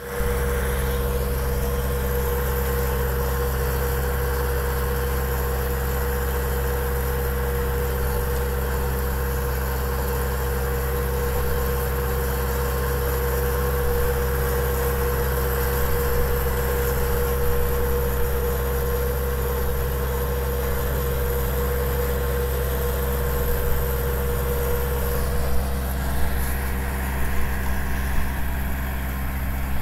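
Tractor engine running steadily as it pulls a rotating-bar onion root cutter along the rows, with a steady whine above the engine note. Near the end the whine stops and a few knocks come through.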